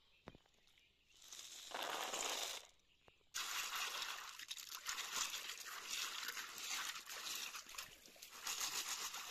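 Water sloshing through a woven bamboo basket as a hand stirs and rubs a mass of snails, their shells clattering together. A short splash comes about two seconds in, and the sloshing and clatter run on without a break from about three seconds in.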